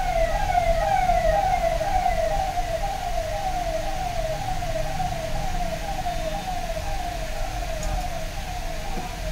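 Electronic siren-like warble: a high tone sweeping down over and over, about two sweeps a second, steady throughout and a little weaker toward the end, over a steady low hum.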